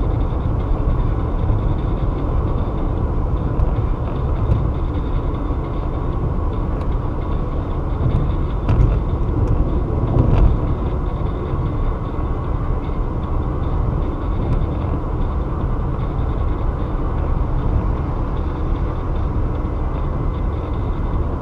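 Steady road noise of a car driving on a highway: a low tyre and engine rumble with no break, and a few faint clicks.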